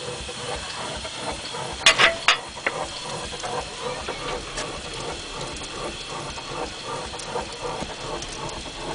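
Wood fire burning in a vertical steam boiler's firebox: a steady hiss with scattered small crackles throughout. A quick cluster of loud sharp snaps comes about two seconds in.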